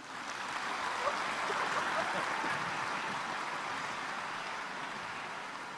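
Audience applauding, building over the first couple of seconds and then slowly dying away.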